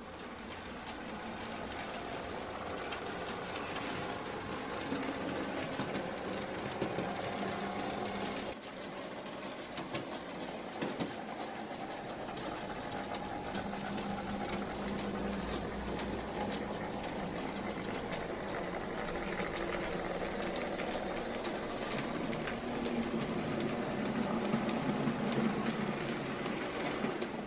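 N gauge model trains running: the steady whirr of small electric locomotive motors and wheels rolling on the track, with scattered sharp clicks.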